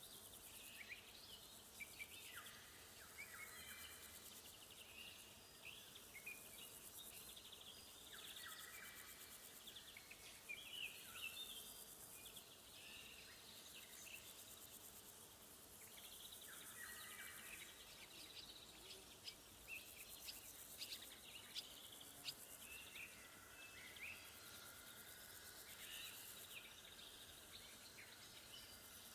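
Quiet summer woodland chorus. Several birds give short chirps and calls throughout, and a lower, longer phrase recurs every several seconds, over a continuous high, finely pulsed trilling of crickets.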